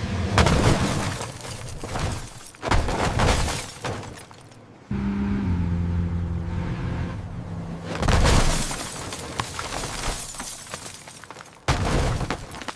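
Car-crash sound effects: about four heavy crashes with shattering glass and breaking metal, spread through the stretch. Between the crashes a low steady hum is heard.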